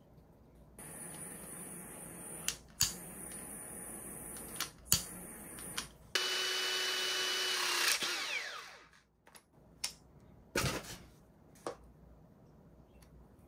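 A small handheld power tool's motor runs at a steady pitch for about two seconds, then is switched off and spins down. Before it there is a quieter steady whir broken by several sharp clicks, and after it a few knocks of tools being handled.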